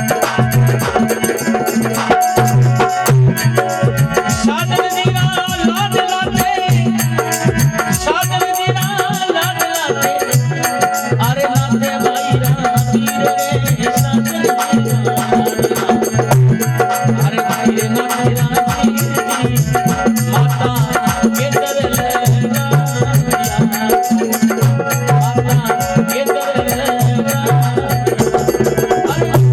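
Instrumental interlude of a Rajasthani folk bhajan: steady hand-drum and rattle percussion under a wavering melodic instrument line.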